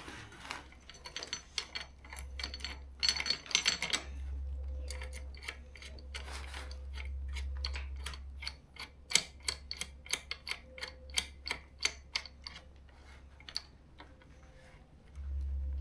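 Small metal hardware and hand tools clicking and clinking while seat-bracket bolts and washers are fitted: a quick clatter early, then a run of separate clicks about two a second.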